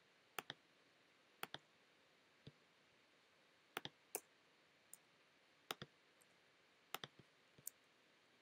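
Computer mouse button clicking: sharp clicks every second or so, many in quick pairs, each press followed closely by its release.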